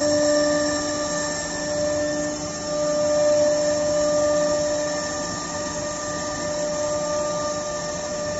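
Multi-head CNC router's spindle running with a steady whine of several fixed pitches while its bit cuts along the edge of a wood panel, the cutting adding a rough hiss that swells and eases slightly.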